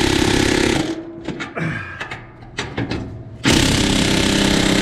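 Pneumatic air hammer run in two bursts against a truck's exhaust pipe, with metal clinks and knocks in the pause between. The vibration is driving the pipe up into its joint.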